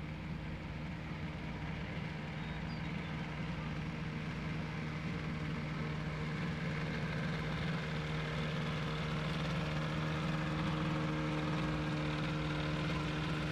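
SkyCycle ultralight trike's Kawasaki 340 engine running steadily in flight, gradually growing louder as the trike approaches.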